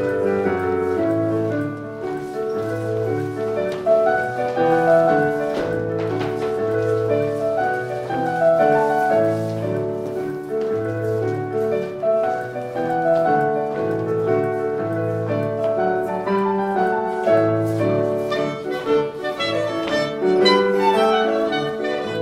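Band playing a tune for country dancing: a continuous melody over a steady beat in the low notes.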